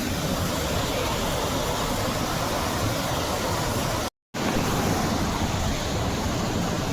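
Steady rushing of a waterfall's falling water, broken by a moment of total silence about four seconds in.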